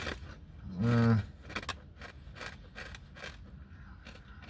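Someone eating a kettle-cooked potato chip: a short hummed vocal sound about a second in, then the chip crunching as it is chewed, about two crisp crunches a second.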